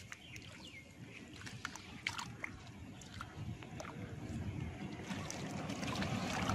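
Hands sloshing and splashing through shallow muddy water among grass, with scattered small splashes and drips, growing louder toward the end.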